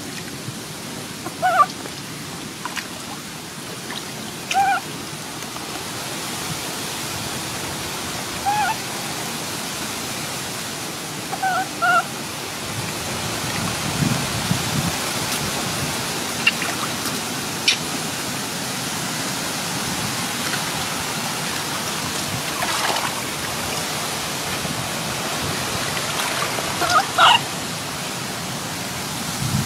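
Steady rushing hiss of water with a baby monkey giving short, high cries, five brief calls spaced several seconds apart, and a few faint splashes.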